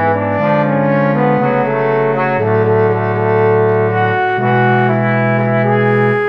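Low brass quartet of two trombones, euphonium and tuba playing, the first trombone carrying a moving melody over long held notes in the lower parts, which change about every two seconds.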